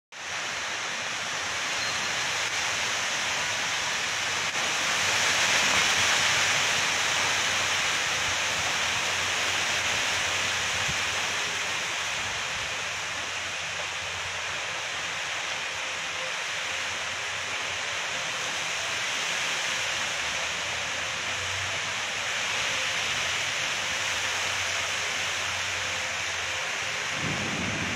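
Heavy tropical rain falling on palm fronds and forest foliage: a steady, dense hiss that swells louder about five to seven seconds in.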